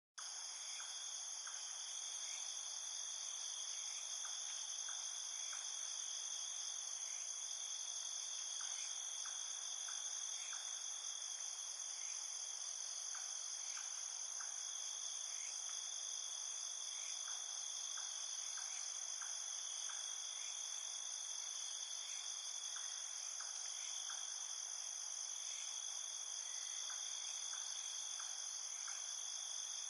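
Night-time jungle ambience: a dense, steady, high-pitched chorus of insects, with short chirps scattered through it.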